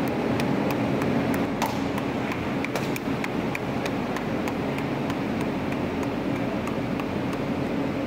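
A steady mechanical drone of machinery, with a string of sharp clicks, several a second, over the first half.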